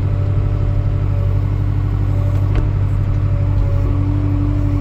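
Skid steer engine running steadily, heard from inside the cab as an even low drone with a faint steady hum above it.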